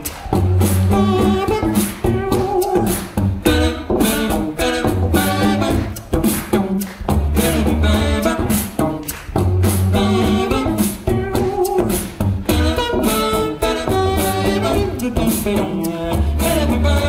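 Live beatboxed techno: vocal drum beats with a deep bass note pulsing on and off and pitched vocal lines layered over it.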